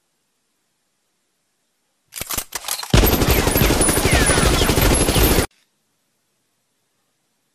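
Machine-gun fire sound effect: a few separate shots about two seconds in, then a rapid continuous burst lasting about two and a half seconds that cuts off suddenly.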